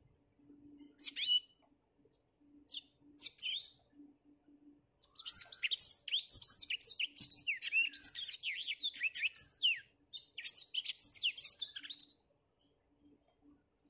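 Black-throated canary (blackthroat) singing: a few short chirps in the first four seconds, then a long, rapid song of high, sliding notes for about five seconds, and another shorter burst a little later.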